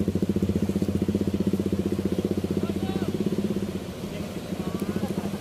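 A small engine running steadily with a fast, even throb, easing slightly about four seconds in.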